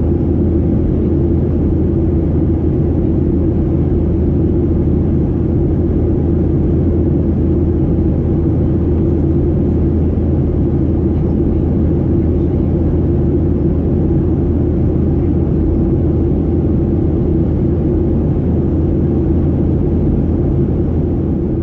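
Steady cabin drone of a Boeing 737-800 in flight, heard from inside the cabin: its CFM56 jet engines and the rush of air over the fuselage make an even roar with a low hum.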